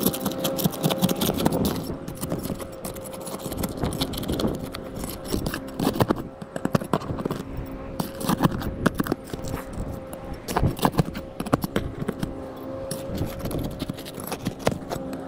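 Irregular clatter, knocks and scrapes of roof tear-off work: asphalt shingles and the metal of a sun tunnel being pried loose and handled. A steady faint hum runs underneath.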